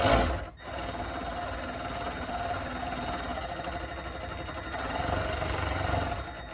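Cordless Milwaukee power tool running on a bolt: a short burst, then a long steady run with a fast even rattle, backing out a bolt to lower the fuel tank.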